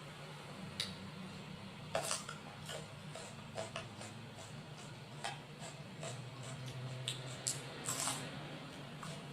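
Utensils clinking and tapping lightly against dishes in irregular, scattered clicks, over a faint steady low hum.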